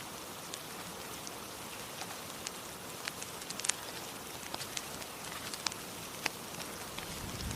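Fireplace crackling: a steady soft hiss with irregular sharp pops and snaps, a few of them louder.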